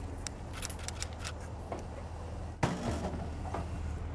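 Light metal clicks and rattles as a wire cage trap is handled at an animal control truck's side compartment, then one loud bang about two and a half seconds in as the compartment door is pushed shut. A low steady hum runs underneath.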